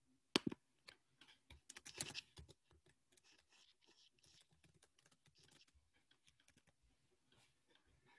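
Quiet typing on a computer keyboard: a run of irregular key clicks, the louder ones in the first two and a half seconds, then fainter scattered taps.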